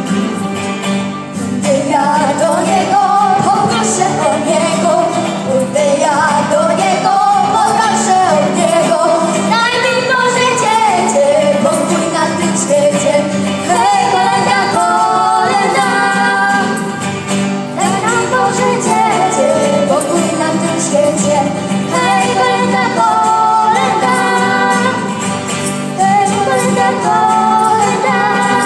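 Two girls singing a Polish Christmas carol (kolęda) with a small band of electric and acoustic guitar, keyboard, violin and maracas; the voices come in about two seconds in over a steady shaker rhythm.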